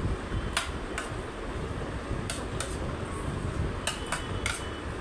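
Metal spoon clinking and scraping against a stainless steel thali plate: several sharp clinks at irregular intervals, a few ringing briefly. Under them runs a steady low rumble.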